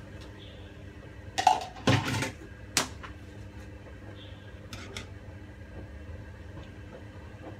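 A metal ladle and kitchen utensils clattering against a pot in a few sharp knocks about one and a half to three seconds in, then the ladle stirring a simmering pot with a couple of light clinks, over a steady low hum.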